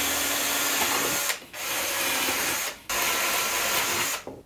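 Cordless drill-driver running in three bursts into a softwood frame, cutting out briefly twice before it stops near the end.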